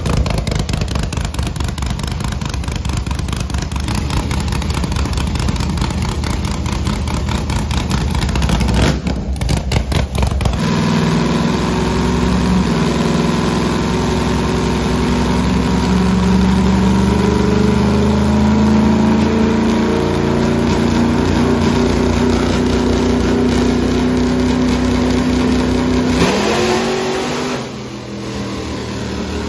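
Pushrod V8 with a four-barrel carburettor in a pickup burnout truck, running loud and choppy at first, then on a chassis dyno pulling under load with its note climbing slowly and getting louder for about fifteen seconds before falling away near the end.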